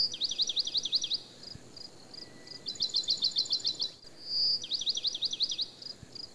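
A songbird singing: a high held whistle, then runs of quick down-slurred notes at about eight a second, with a few sparser notes between the runs. The same stretch of song comes round again unchanged about four seconds in, as from a looped recording.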